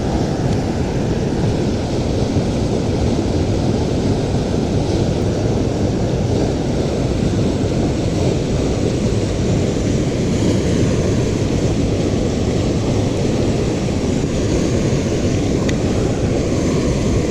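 Steady, loud rushing noise, heaviest in the low end, from wind buffeting the microphone over a high, fast-flowing river.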